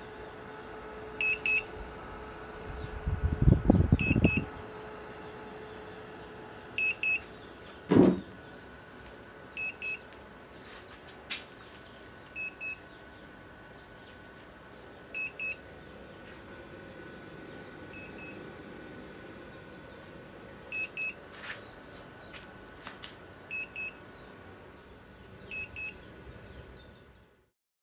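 Electronic buzzer on a homemade Arduino Nano egg-incubator controller giving short double beeps about every three seconds over a steady hum. A burst of low rumbling knocks comes about three to four seconds in, and a single sharp knock comes about eight seconds in.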